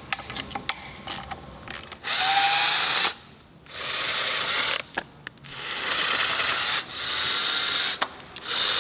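Cordless power tool running in about five short bursts of a second or so each, spinning the idler and tensioner bolts out of a Subaru EJ20 timing-belt front. Light clicks of tool and socket handling come before the first burst, about two seconds in.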